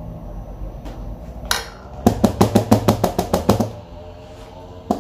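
Rapid knocking on a plastic ice-cream container, about a dozen quick sharp knocks in under two seconds, after a short scrape. One more single knock comes near the end.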